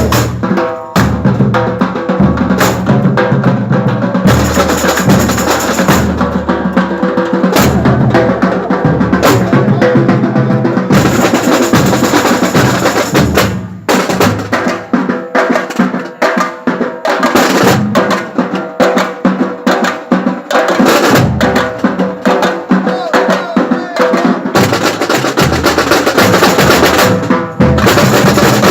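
Music with drums playing: snare and bass drum with other percussion over sustained pitched tones. It breaks off briefly about halfway through, then carries on.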